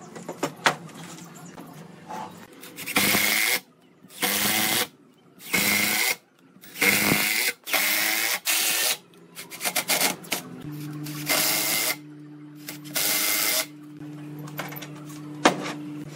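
A handheld power tool running in repeated short bursts of about a second each, seven or eight times, starting and stopping sharply. A few sharp knocks come before the bursts begin.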